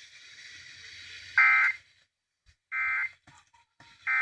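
Emergency Alert System end-of-message (EOM) tones: three identical short bursts of raw digital SAME data about 1.4 s apart, marking the close of the alert. They follow a stretch of faint hiss.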